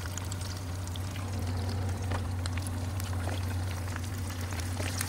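Flour-tortilla flautas deep-frying in a skillet of oil heated to about 360°F: a steady sizzle full of small pops and crackles, with a low steady hum underneath.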